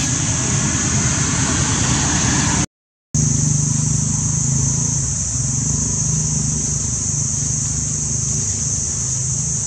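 Steady outdoor background noise: a constant high hiss over a low engine-like rumble. It cuts out completely for about half a second near three seconds in.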